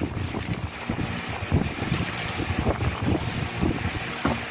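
Plastic packaging crinkling and small parts knocking about in a cardboard box as they are handled, over a low steady rumble.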